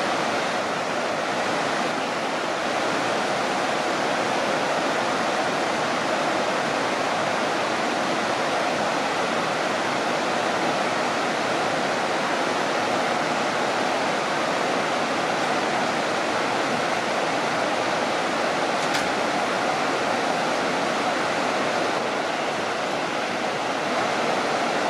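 Whitewater rapids of a river waterfall pouring over rocks: a steady, unbroken rushing of water.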